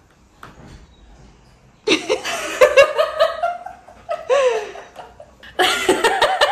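A woman laughing in repeated bouts, starting about two seconds in.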